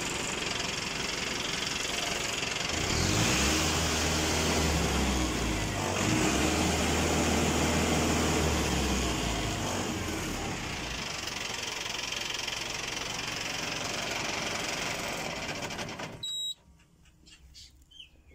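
Farm tractor's diesel engine running just after starting. Its speed rises about three seconds in, holds, and drops back to idle around ten seconds in, and the engine sound cuts off abruptly about sixteen seconds in.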